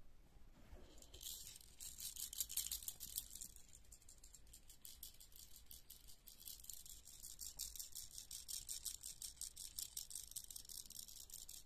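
Small plastic baby rattle shaken quickly and without a break, a fast, bright, high-pitched rattling that starts about a second in.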